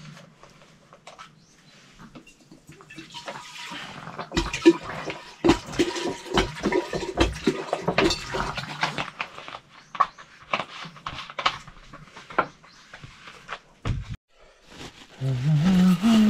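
Water pouring from a plastic bottle into a metal cooking pot in an uneven, gurgling stream, lasting about ten seconds before it stops.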